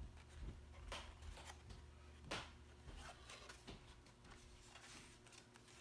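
Faint rustling and light crackles of cardstock being handled and folded, the sharpest crackle about two seconds in.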